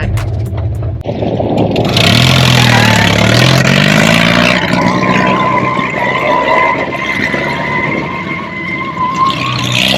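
1929 Ford Model A speedster racecar's engine revving hard in a burnout: its pitch dips and then climbs about two to four seconds in, where it is loudest, then a steady high squeal from the spinning rear tyres sets in and holds.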